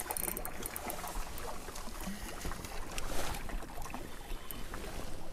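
Water splashing as a hooked sea trout thrashes at the surface in the shallows, over small waves lapping on a stony shore and some wind; one louder splash about three seconds in.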